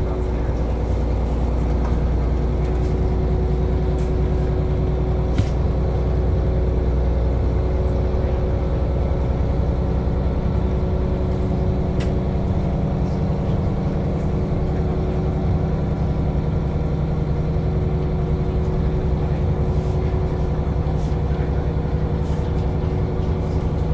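KiHa 40 diesel railcar running along the line, its engine droning steadily under a constant whine, with a few faint clicks. The deep part of the drone gives way to a higher one about halfway through.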